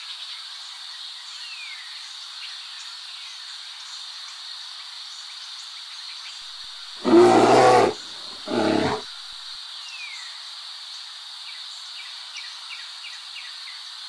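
Two loud, drawn-out animal calls about a second apart, the first longer, over a steady high hiss.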